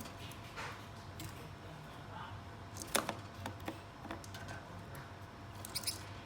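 Pet Gouldian finches making short, high chirps and clicks now and then, the sharpest about three seconds in and a quick little cluster near the end.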